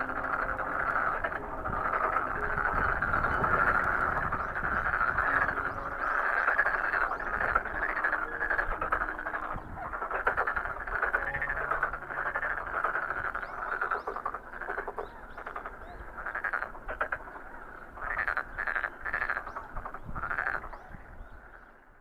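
Frogs croaking in a dense chorus of rapid pulsed calls, which thin out into separate bursts and fade out near the end.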